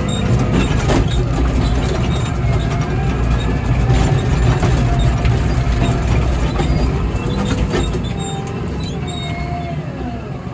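Komatsu WA100 wheel loader's 4.9-litre diesel engine running under load while pushing snow with its front blade, heard from the cab, with short squeaking glides over the engine sound. The engine eases off slightly about eight seconds in.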